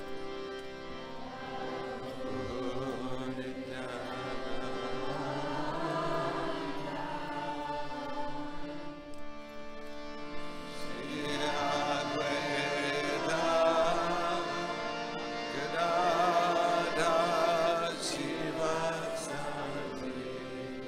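Devotional kirtan: slow chanting with long, ornamented held notes over a sustained droning accompaniment, growing louder about halfway through.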